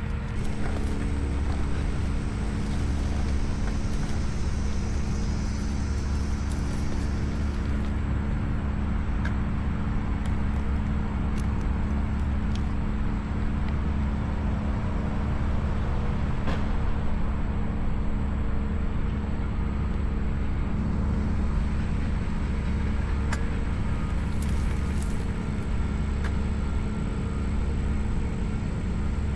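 Tractor engines at a land-clearing site running steadily: a continuous low drone with a steady hum.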